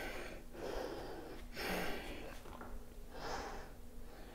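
A woman's breathing: a few soft breaths in and out, about a second apart, while she holds a yoga chair pose.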